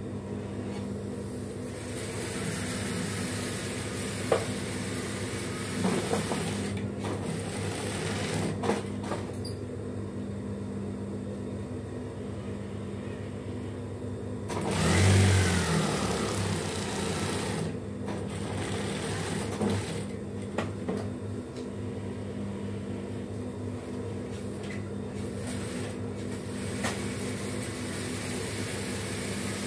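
Industrial sewing machine: its motor hums steadily, and the machine stitches in several fast runs, the longest and loudest about halfway through.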